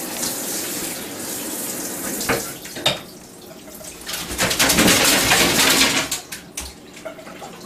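Handheld shower sprayer running water over a wet dog in a bathtub, stopping after about two seconds, then two sharp knocks. About four seconds in comes a second, louder spell of water noise lasting about two seconds, followed by a few light knocks.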